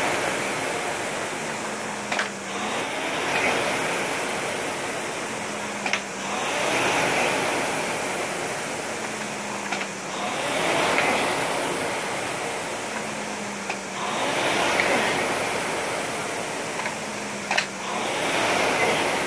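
Rowing machine flywheel whooshing with each stroke. It swells on every drive and fades on the recovery, about every four seconds, with a sharp click near the start of each stroke.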